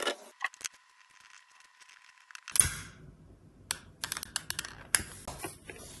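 Scattered small clicks and taps of pens, paper and a long utility lighter being handled on a tabletop, with a sharper click about two and a half seconds in and a quick run of clicks near the end.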